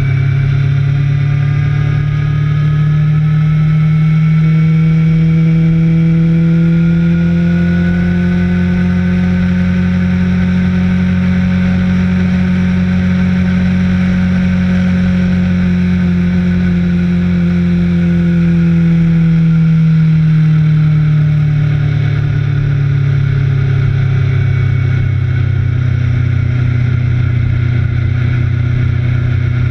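Motorcycle engine running hard on a race track. Its pitch climbs slowly for the first several seconds, holds high, then falls away about two-thirds of the way through as the bike slows for a corner.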